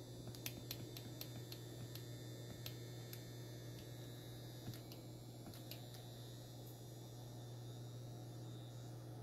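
Steady low electrical hum, with a series of sharp, irregular clicks over the first six seconds from keys being pressed on a handheld RF signal generator.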